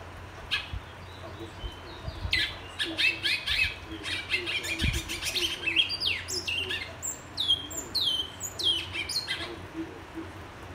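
Caged great-billed seed-finch (bicudo, twa-twa) singing: a single short note, then after a pause a rapid run of whistled phrases lasting about seven seconds, ending in a string of clear notes that each fall in pitch. A few dull low thumps sound underneath.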